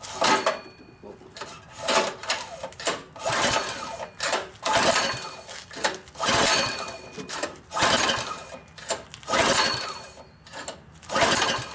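Recoil pull-starter of a new 7 hp 209cc four-stroke OHV engine pulled hard about eight times in a row, roughly every one and a half seconds. Each pull spins the engine over with a rasping whir, and it never fires: the engine's on/off switch is still off.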